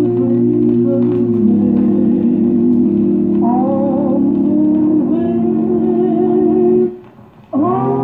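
Slow music played from a spinning record: long held chords of organ and voices, the notes wavering, with a short break near the end before a new chord comes in.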